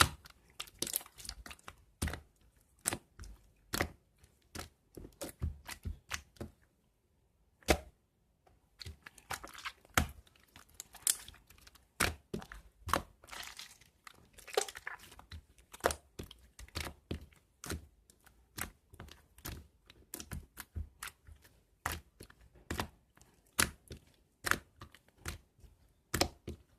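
Marbled slime being squeezed and folded by hand, giving irregular sticky pops and crackles, several a second, with a short pause about seven seconds in.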